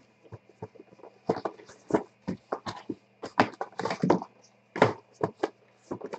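Cardboard trading-card box handled and opened by hand: irregular scrapes, taps and rustles as the sleeve is slid off the inner box.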